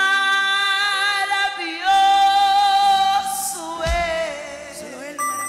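A woman's voice singing a long, held note with vibrato in a praise song, amplified through a microphone, followed by shorter sung phrases over instrumental backing. A single low thump comes about four seconds in.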